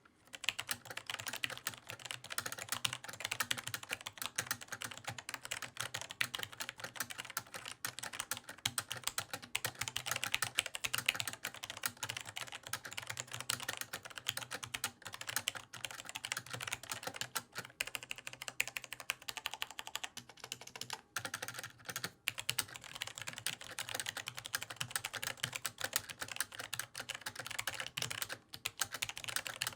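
Fast, continuous typing on a mechanical gaming keyboard with tactile, non-clicky switches. The keystrokes come as a dense patter, with a couple of brief pauses a little past the middle.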